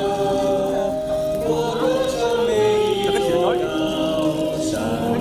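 A group of voices singing a song together with music, in a melody of long held notes.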